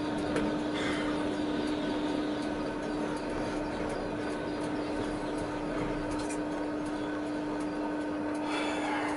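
Tatra T6A5 tram running slowly and easing off, heard from inside the driver's cab: a steady hum over an even haze of running noise, with a few light clicks and a short hiss near the end.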